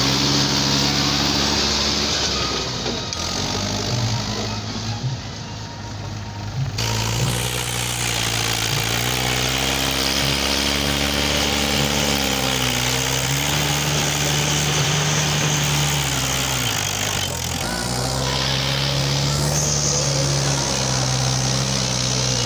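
Mahindra 575 DI tractor's four-cylinder diesel engine running under load as it hauls a trolley full of sand. The engine note rises and falls in pitch a few times, and the sound changes abruptly about three and again about seven seconds in.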